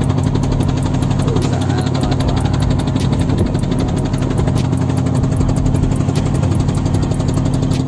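Fishing boat's engine running steadily under way, a constant low hum with an even, rapid beat.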